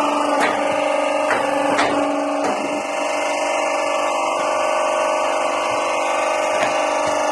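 Notebook edge-squaring machine running: a steady motor hum with several sharp knocks in the first few seconds, and one more near the end.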